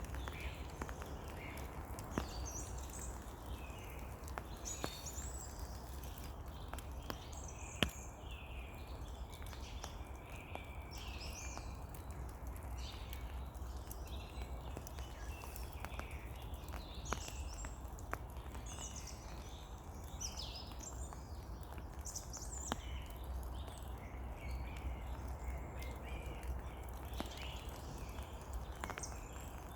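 Steady rain falling in a forest, with scattered sharp drip ticks, while birds call and sing throughout.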